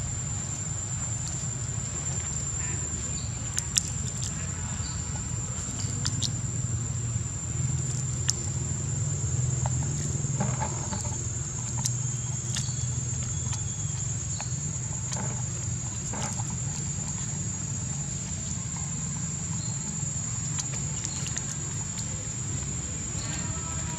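Outdoor background: a steady low rumble and a constant high-pitched whine, with scattered faint clicks and rustles.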